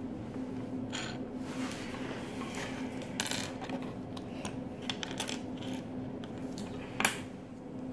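Small plastic Lego pieces clicking and clattering as they are handled and fitted together, a scatter of sharp clicks with the loudest near the end.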